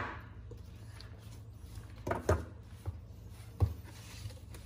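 A few short knocks and clunks of a plastic personal-blender cup filled with soup being handled after its blade lid is screwed on, between about two and four seconds in; the blender motor is not running.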